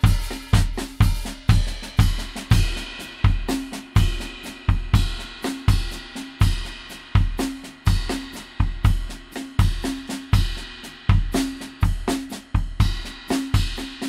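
Music carried by a drum beat: deep bass-drum hits about twice a second, with snare and cymbal or hi-hat strokes packed in between, in a steady, busy rhythm.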